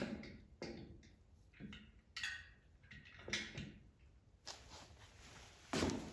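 Parts and hand tools being handled while a lubrication tank is mounted on a bandsaw sawmill frame: a series of short knocks and clanks, some with a brief ring, a scraping rustle about two thirds through, and a last louder knock near the end.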